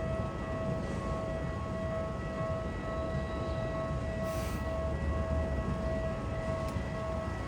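Japanese level-crossing warning bell ringing in a steady, regularly pulsing electronic tone as a Keisei train rumbles past over the crossing.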